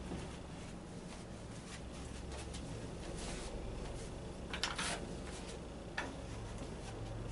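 Large paintbrush softly brushing white primer paint across a stretched canvas, with a short clatter from the plastic paint bucket about halfway through and a sharp click about a second later.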